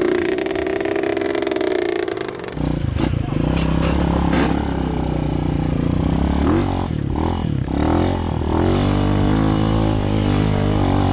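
Dirt bike engines revving on a steep hill climb: a high, steady rev for the first two and a half seconds, then a lower engine note that rises and falls in pitch around seven to eight seconds before settling into a steady run.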